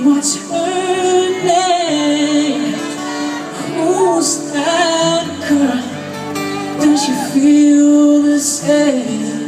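Live pop band music with singing: long held, wavering vocal notes over a steady bass line, guitar and cymbal hits.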